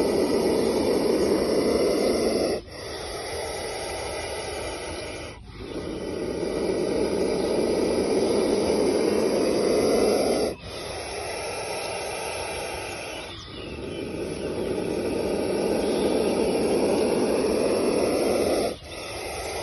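Indian spectacled cobra hissing with its hood spread, a low, rushing hiss in long drawn-out breaths: three loud hisses of several seconds each, with quieter hisses in between. This is the defensive hiss of an angry cobra.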